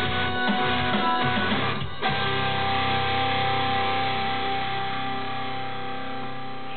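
Background music: a guitar-led rock song with strummed guitar. About two seconds in, a chord is struck and held, ringing and slowly fading.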